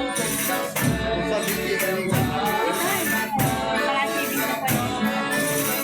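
Folia de Reis group performing: voices singing a devotional song over tambourine and other percussion keeping a steady beat.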